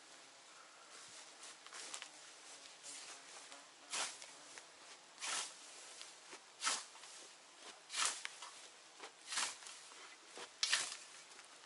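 Hand scythe cutting grass: a steady rhythm of short swishing strokes, about one every second and a half, fainter rustling in the first few seconds.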